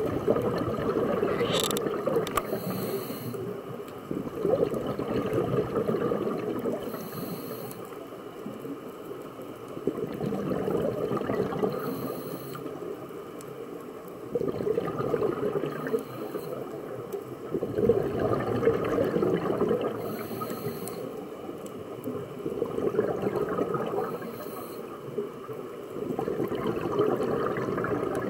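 Scuba regulator breathing recorded underwater: five short hisses of inhalation, each followed by a few seconds of bubbling, gurgling exhalation.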